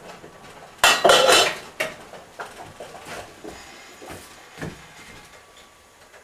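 Metal saucepan lid clattering against a stainless steel pot about a second in, followed by lighter clinks and a knock as the pot is handled.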